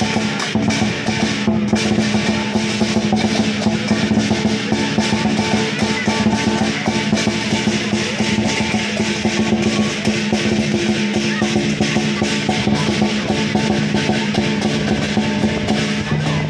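Lion dance percussion band playing: a large drum beaten in a fast, unbroken rhythm with cymbals crashing over it and a steady low ringing tone underneath.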